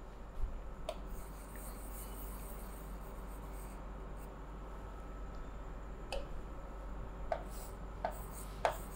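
Marker pen writing on a whiteboard: short strokes, a couple near the start and more often in the last few seconds, over a steady low hum.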